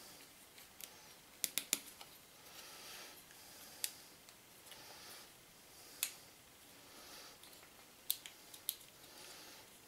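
Laser-cut 6 mm MDF puzzle pieces clicking and tapping against each other as they are handled and worked into place, with faint rustling between. The clicks come singly, with a quick run of three about a second and a half in.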